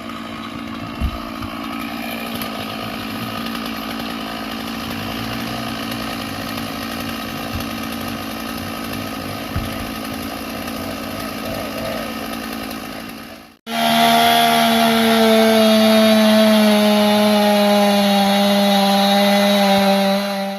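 Chainsaw running steadily at high revs. About two-thirds through the sound breaks off abruptly and comes back louder and clearer: a saw held at a steady high pitch that sags slightly.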